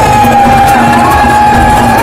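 Loud music: a long held melody line over a steady beat.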